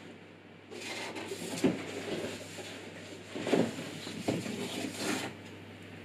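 Cardboard rustling and scraping as a perforated metal PC case panel is lifted out of its box, with a few sharp knocks of the panel against the box.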